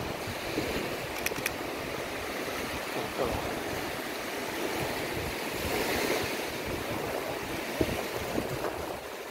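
Surf washing onto a sandy beach in a steady wash of breaking waves, with wind buffeting the microphone.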